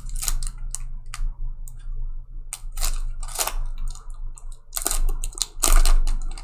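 Trading cards and foil pack wrappers being handled at close range: a run of crisp clicks, snaps and rustles, busiest around the middle and again near the end, over a steady low hum.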